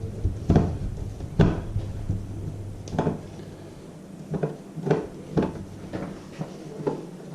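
Irregular knocks and clacks of hard objects being handled, about eight over several seconds, over a low steady hum.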